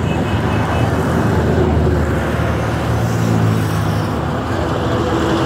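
Steady road traffic noise with a vehicle engine running, its low hum growing stronger partway through.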